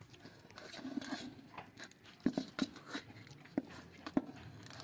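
A steel knife blade scraping and tapping against a steel bowl while gathering and folding sticky, half-cooled jaggery candy syrup, with soft sticky squelching and a few sharp clicks in the second half.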